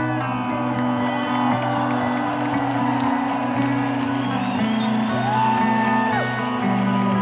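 Live rock band playing slow, held keyboard chords over steady bass notes, with whoops and a whistle from the crowd about five seconds in.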